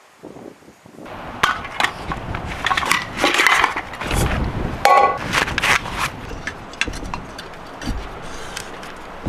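Crinkly plastic packaging being handled and torn open, a dense run of crackles, clicks and rustles starting about a second in.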